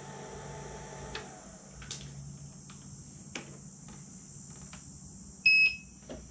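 Gotway MCM5 electric unicycle giving one short, high electronic beep about five and a half seconds in. Light clicks and knocks come from the wheel being handled, and a faint hum dies away in the first second and a half.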